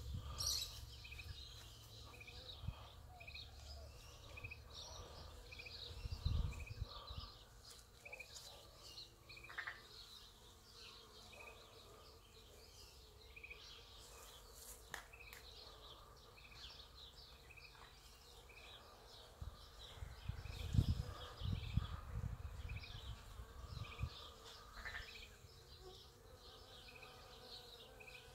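Bees buzzing around apple blossom, with a short high pip repeating about every 0.7 seconds and scattered bird chirps. Low rumbles on the microphone come about six seconds in and again a little past two-thirds of the way through.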